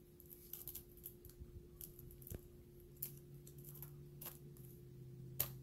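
Faint crinkling and clicking of clear plastic coin-album pocket pages being handled and turned, in scattered short crackles. A steady low hum runs underneath.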